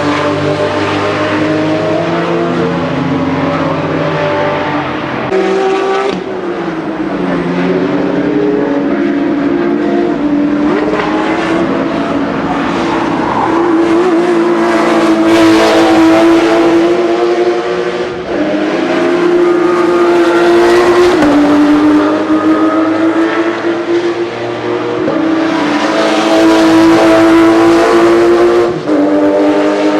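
Porsche sports car engine running hard on a race track. Its pitch climbs under acceleration and steps down abruptly at gear changes, several times.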